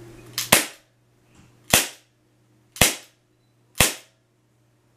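Airsoft Glock 19 pistol fired four times, each shot a sharp snap, about a second apart.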